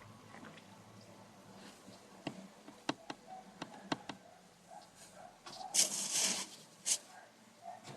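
Hamster eating: a run of small sharp clicks, then a short louder rustle about six seconds in and one last click.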